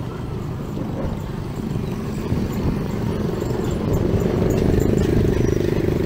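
Street traffic rumble, with a vehicle engine's steady hum coming up and growing louder from about four seconds in.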